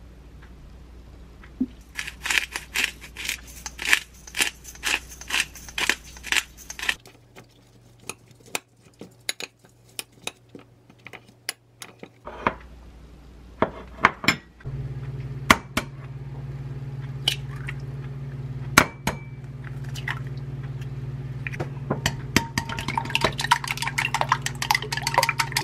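Kitchen utensil sounds: a metal spoon clinking against a ceramic bowl while meat is seasoned and mixed, with a dense run of rapid clicks from about two to seven seconds in. Near the end, chopsticks beat eggs in a glass bowl, tapping quickly against the glass. A low steady hum comes in about halfway through.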